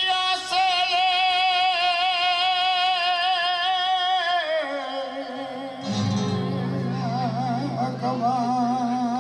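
Male flamenco singer holding one long high note with a wavering vibrato, letting it fall away about four and a half seconds in. He then goes on in winding, ornamented lines over sustained low notes from the flamenco guitar.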